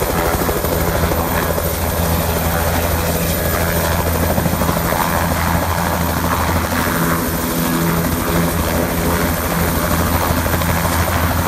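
Bell 206-type two-bladed helicopter hovering and setting down on its landing pad. The rotor beats fast and steadily under the engine's whine, at an even, loud level.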